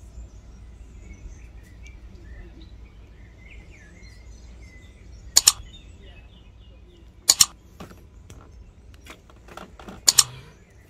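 Three sharp double mouse clicks, about two seconds apart, over faint bird chirps and light outdoor background noise.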